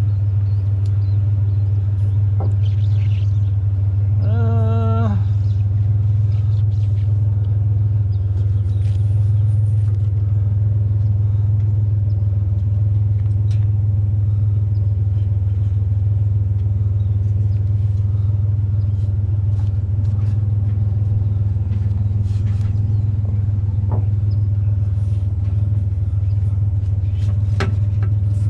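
Pickup truck engine idling with a steady low drone. About four seconds in there is a brief wavering pitched sound, and near the end a few sharp clicks or knocks.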